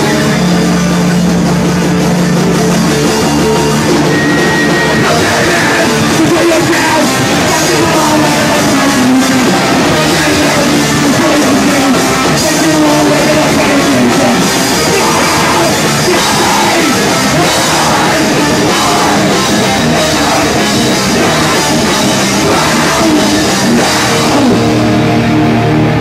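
Hardcore punk band playing live and loud: electric guitar over a drum kit with crashing cymbals.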